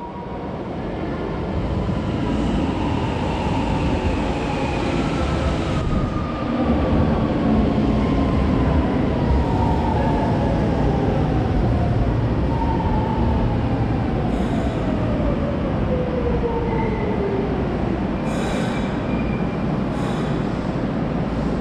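Kobe Municipal Subway Seishin-Yamate Line train pulling into an underground station and braking to a stop. Its running noise grows as it arrives, and its motor whine falls steadily in pitch as it slows. A few short hisses come near the end as it halts.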